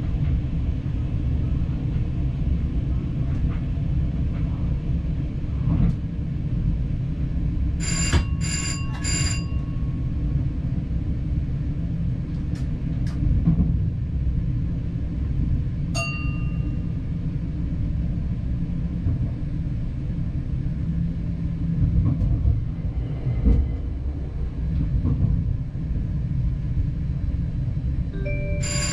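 Diesel train running along the line, heard from the cab as a steady low rumble. Bell-like rings cut through it: three quick rings about eight seconds in, a single ring about halfway, and three more at the very end.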